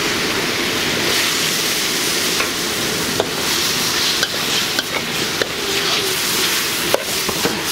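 Mushroom pieces sizzling in a hot wok as they are stir-fried, with a metal spatula scraping and clinking against the wok several times in the second half.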